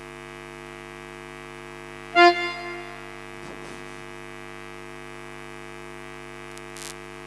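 Steady electrical hum and buzz from a stage loudspeaker system between lines, with one short, loud musical note about two seconds in that fades quickly.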